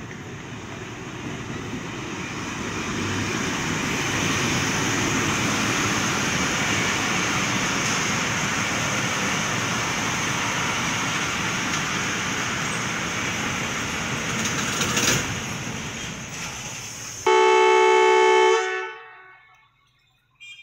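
A Pakistan Railways passenger train rolls past at speed: the steady noise of the diesel locomotive and coaches builds over the first few seconds and holds. Then the noise cuts off and a diesel locomotive horn sounds one loud blast of about a second, which dies away.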